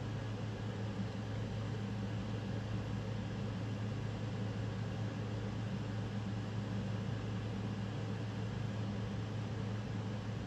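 Steady low hum with a light hiss: background room noise.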